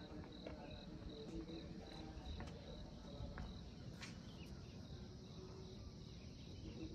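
An insect chirping in a steady, even pulse, about three chirps a second, faint over a low background rumble.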